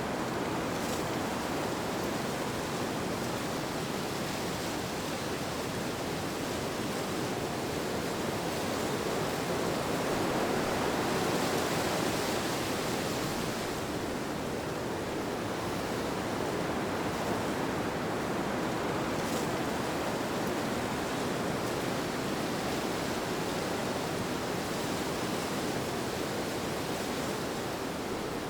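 Steady rushing wind, an even whooshing noise that swells slightly about ten to thirteen seconds in and then eases back.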